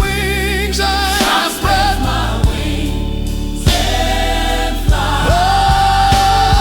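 Gospel music: a choir sings long, wavering held notes over a steady bass, with drum beats coming more often in the second half.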